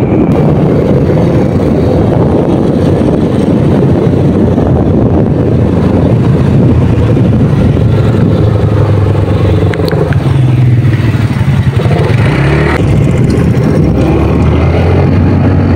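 Motorcycle engine running steadily while riding. The engine note drops and changes about ten seconds in as the bike slows, then picks up again a few seconds later.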